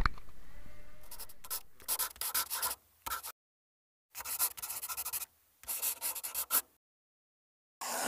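Several short bursts of scratchy rubbing noise, made up of rapid strokes, with dead silence between them.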